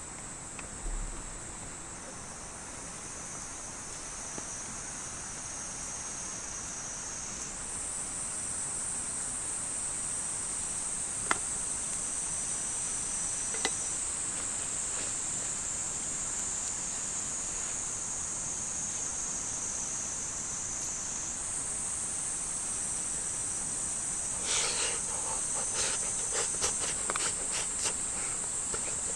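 Dense insect chorus, a steady high-pitched shrilling that steps up in level twice. A couple of sharp clicks are heard, and a cluster of clicks and knocks comes near the end.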